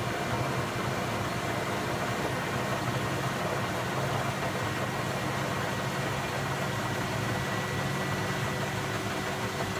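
Indesit 092 washing machine spinning its empty drum at 380 rpm: a steady motor hum with a thin whine over it.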